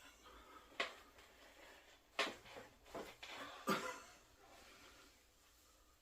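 Three sharp clicks, about a second and a half apart, from hands-on body manipulation during a back- and neck-cracking session.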